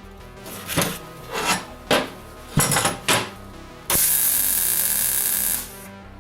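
Metalworking tools: about five short scraping or filing strokes, then a power tool runs steadily for nearly two seconds and cuts off.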